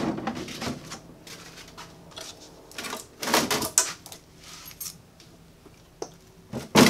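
Hollow plastic knocks and rattles from a storage tote being handled, with a cluster of clatters about three seconds in and a loud thump near the end as the heavy battery-and-inverter unit is set down inside the tote.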